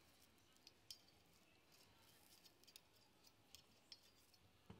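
Near silence with faint, scattered light clicks and taps from cooking utensils being handled at the grill, the sharpest about a second in and again near the end.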